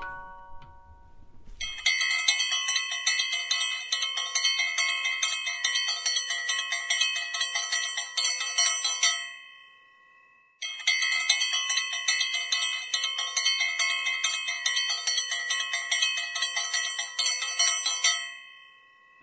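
Bell-like background music: a rapid, bright tinkling figure of chiming notes at fixed pitches. It plays twice, with about a second of silence between, near the middle.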